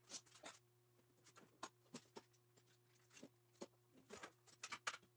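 Faint, scattered light clicks and taps of small parts being handled on an MDF spoil board, about a dozen spread irregularly, over a faint steady hum.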